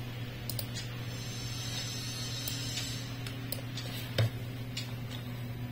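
Low steady hum of room tone with a few faint clicks, typical of computer-mouse clicks while a line is drawn on screen, and one soft knock about four seconds in.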